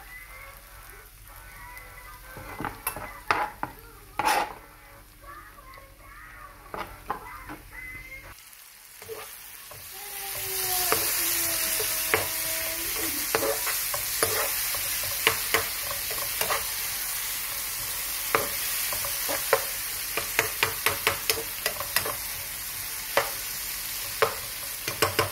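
Kimchi, diced spam and garlic sizzling in oil in a nonstick frying pan, with a spatula stirring and clicking against the pan. The sizzle gets much louder about ten seconds in.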